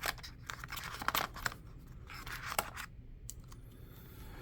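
Hands handling the doorbell's packaging and parts: a run of light clicks and taps with scratchy rustles of plastic and cardboard, the loudest about a second in and again around two and a half seconds in.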